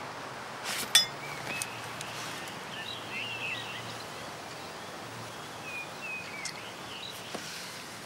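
Woodland ambience: small birds chirping in short bursts several times over a steady background hiss, with one sharp click about a second in.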